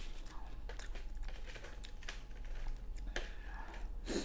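Close-up eating sounds: chewing and handling seafood, small scattered clicks and crackles, with a sharper crack near the end.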